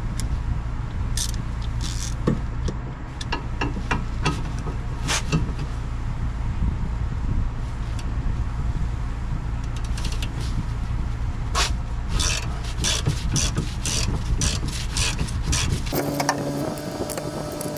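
Ratchet and wrench clicking and scraping on a 14 mm nut while it is loosened, in short runs with a faster stretch of regular clicks, over the steady hum of a fan. About sixteen seconds in the fan hum cuts off and a steady whir with a few held tones takes over.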